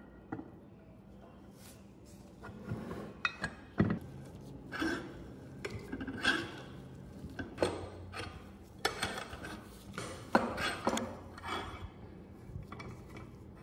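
Bench vise being put back together: the steel movable jaw slides into the cast-iron body with scraping and irregular metal knocks and clinks. Near the end the screw handle is turned, and the handle and screw clink as it winds.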